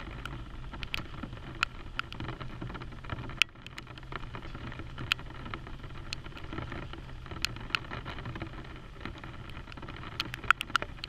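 Dodge Charger Scat Pack's 6.4-litre HEMI V8 running with a steady low rumble as the car rolls slowly up a wet driveway and stops, with scattered sharp ticks of raindrops striking the plastic cart lid close by.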